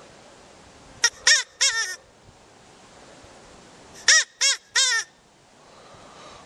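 Recorded rabbit distress cries, the call used as a hunting lure: two bursts of three short squeals, each rising and then falling in pitch, about three seconds apart.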